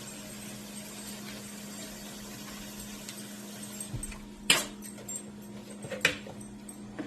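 A husky whimpering softly over a steady low hum, with two sharp clicks about a second and a half apart in the second half.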